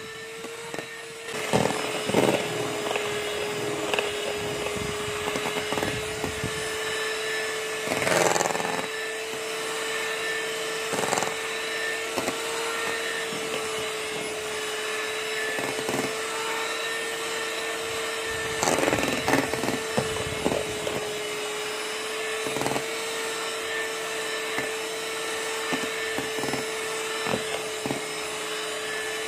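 Electric hand mixer running steadily with a constant motor whine as its beaters whip boiled icing (egg-white meringue) in a stainless steel bowl. Irregular clicks and clatters come from the beaters hitting the side of the steel bowl.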